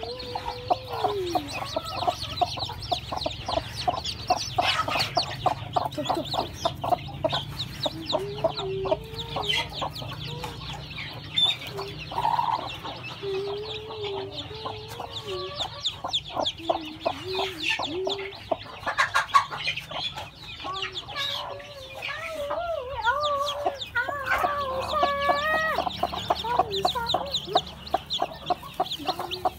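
A broody hen clucking in low, wavering calls, with her newly hatched chicks peeping rapidly and high over it.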